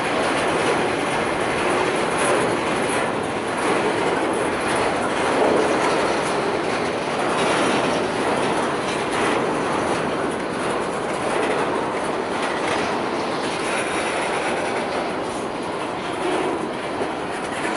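A freight train of covered hopper cars rolling past close by: a steady rumble and clatter of steel wheels on the rails that runs without a break.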